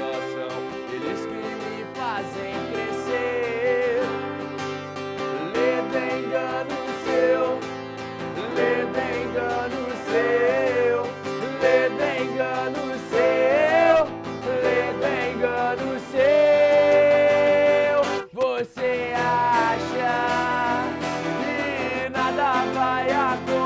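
A band with guitars plays an instrumental passage of a song. A lead line of sliding, bending notes runs over the accompaniment and holds one long note, then the music briefly drops out before going on.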